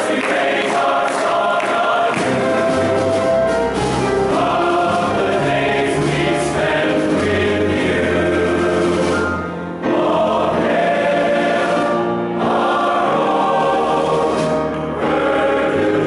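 Men's choir singing in many-part harmony, with short breaks between phrases about two-thirds of the way through and again near the end.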